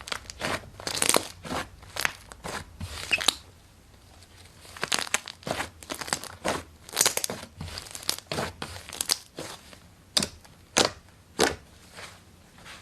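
Slime being squeezed and pressed by hand: an irregular run of short sharp pops and crackles, with a brief pause about four seconds in.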